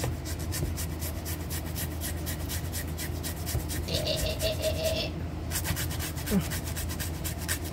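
Cucumber being rubbed back and forth on a small hand grater: quick, even rasping strokes with a brief pause a little after five seconds in.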